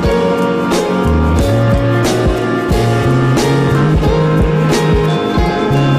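Instrumental background music with a bass line and a steady drum beat.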